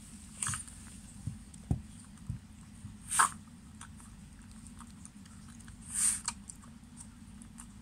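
A Shiba Inu licking and eating from a ceramic bowl: scattered wet licks and smacks, with louder ones about three seconds in and six seconds in.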